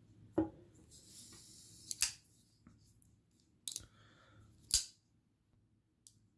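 Benchmade 940 folding knife being handled, its blade clicking as it is opened and closed on the AXIS lock: four separate sharp clicks a second or so apart.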